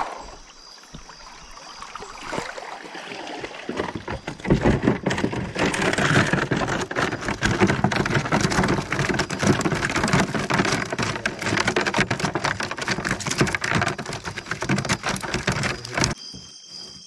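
Rain pattering on a surface: a dense, crackling patter that starts about four seconds in and cuts off sharply near the end.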